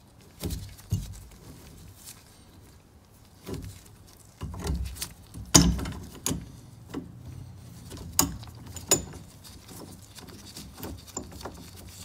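Irregular clicks and knocks from a Milwaukee mini copper tubing cutter being handled and worked on a copper pipe, the loudest knock about halfway through.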